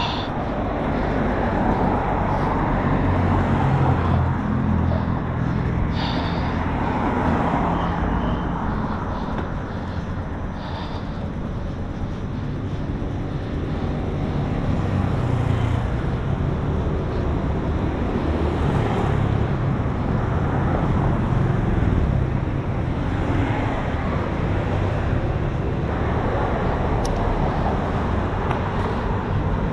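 Road traffic passing, with a steady, uneven low rumble of wind on the microphone from riding a bicycle along the road.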